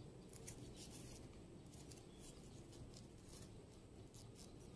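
Faint, scattered scratchy rustles of a metal crochet hook pulling cord yarn through slip stitches, over near-silent room tone.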